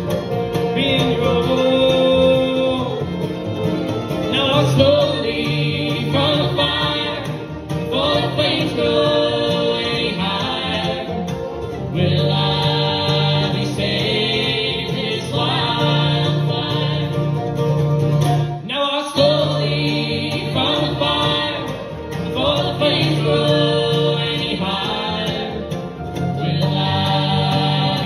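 Live bluegrass band playing: banjo, mandolin, acoustic guitar and upright bass behind a woman singing lead, with harmony voices joining in phrases of a few seconds each.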